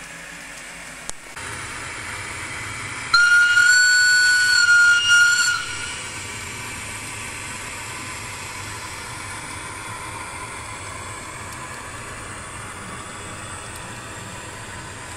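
A ZIMO DCC sound decoder in an N-scale model of the Rhaetian Railway Ge4/4 II electric locomotive, playing through the model's tiny speaker: a steady hum and hiss of the running sound, with one single-pitched horn blast of about two and a half seconds a few seconds in. A click about a second in, after which the running sound gets louder.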